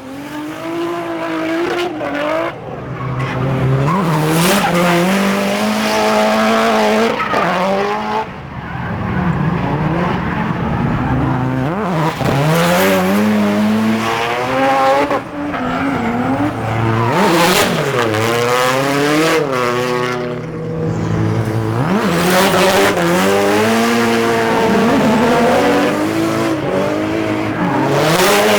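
A drift car's engine revving hard, its pitch rising and falling again and again as the throttle is worked, with tyres squealing in the slides.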